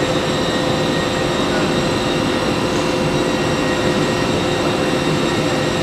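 SPC flooring production line machinery running steadily: an even machine noise with several steady whining tones and no change in pace.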